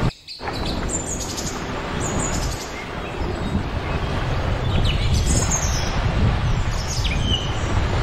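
Several short, high bird chirps over a steady rush of wind and gentle surf. The sound briefly drops out just after the start.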